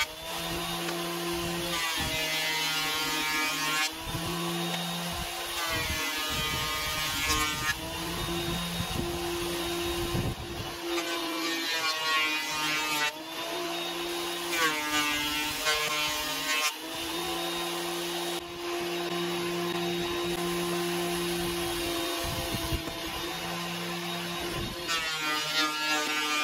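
Electric benchtop thickness planer running as cedar boards are fed through it, a steady motor whine with chip noise. Several times, for a second or two, the pitch shifts and bends as a board is cut, then settles back to the steady running tone.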